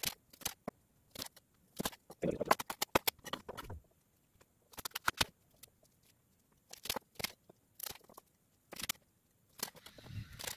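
Kitchen knife cutting crisp fennel bulbs on a wooden chopping board: sharp knocks of the blade on the board, some single and some in quick runs, the longest run a few seconds in.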